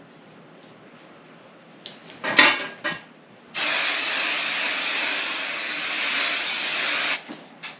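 Aerosol can of hairspray spraying in one long, even hiss lasting about three and a half seconds, starting a little past the middle. Just before it, about two seconds in, a short clatter of knocks.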